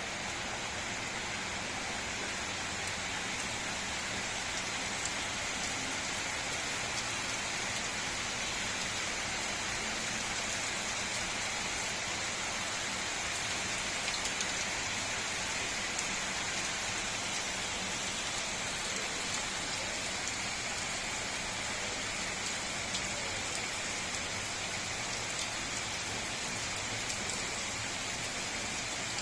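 Steady rain falling and pattering on surfaces, with small drops ticking now and then.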